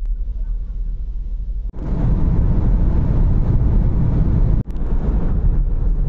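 Car interior noise from a few short clips cut together. First a low rumble on a ferry's vehicle deck, then fuller, steady road and wind noise while driving on a motorway. The sound changes abruptly at the cuts, about two and four and a half seconds in.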